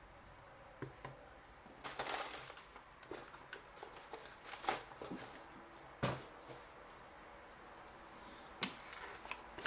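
Handling of packaging and parts: paper rustling and a few sharp clicks and knocks as items are moved about.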